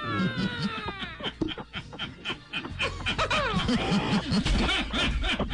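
A person laughing: a long falling vocal cry at the start, then quick repeated short bursts of laughter.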